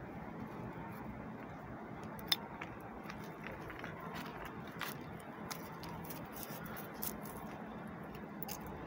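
A dog chewing meat scraps from a foam tray: scattered soft clicks and crunches of teeth on food, the sharpest about two seconds in, over a steady low hiss.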